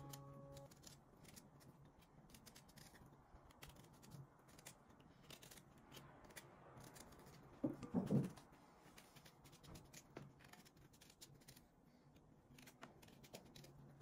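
Faint kitchen handling sounds: scattered light clicks and taps, with a brief louder clatter of a few knocks about eight seconds in.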